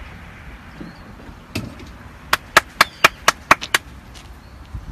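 A single sharp click, then a quick, slightly uneven run of about eight sharp clicks, roughly five a second.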